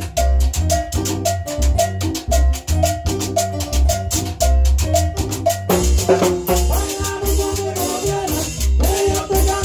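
A band playing salsa-style Latin dance music in rehearsal, with heavy bass, a steady dense percussion beat and a short repeating melodic figure. About six seconds in, fuller sustained melodic parts come in over it.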